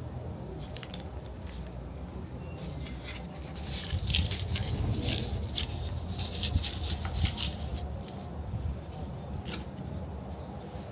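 Crackling, rustling handling sounds of repotting work, with a dense run of crackles from about three to eight seconds in, over a steady low hum.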